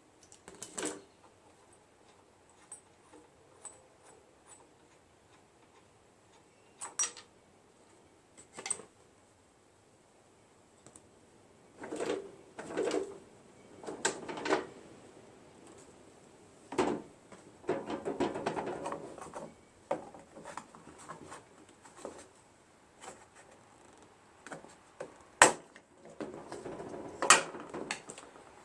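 Hand tools and small parts being handled: scattered clicks, knocks and short clatters with quiet gaps between, the sharpest click about three quarters of the way in.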